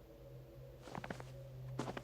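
Footsteps: two steps about a second in and near the end, each a quick cluster of knocks, over a steady low hum.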